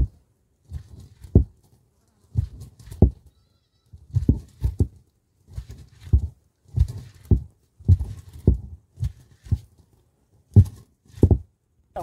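Large rough boulder rocked back and forth on a flat stone slab, crushing dried pomegranate seeds: a rhythmic grinding crunch of stone on stone, about eight strokes, one every second or so.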